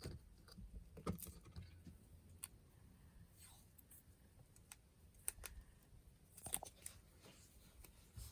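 Near silence with a few faint, scattered clicks and taps of small handling, over a low background hum.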